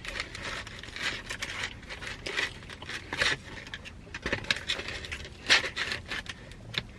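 Close-up chewing of pepperoni pizza: irregular crunches and mouth clicks, with louder crunches about three and five and a half seconds in.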